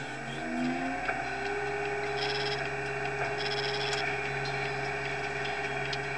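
Siloking self-propelled feed mixer wagon running steadily, heard inside its cab as a hum with several steady tones, some of them rising in pitch during the first second. Two short high beeps sound about two and three and a half seconds in.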